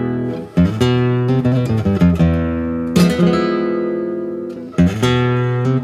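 Background music: an acoustic guitar playing chords, each struck sharply and left to ring out.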